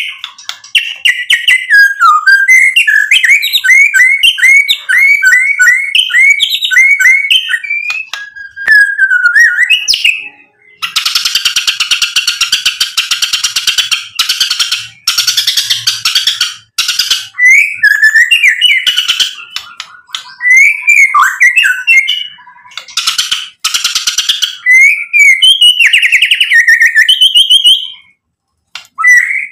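Male white-rumped shama (murai batu) singing a varied song full of mimicked fill-in phrases. It opens with a run of quick repeated whistled notes, breaks into harsh rasping bursts about a third of the way in, then returns to varied whistled phrases.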